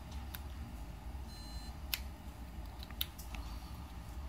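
One short, high POST beep from the PC's motherboard speaker about a second and a half in, as the MSI-board computer restarts: the single beep that signals the power-on self-test passed. A steady low hum underlies it, and a few light clicks follow.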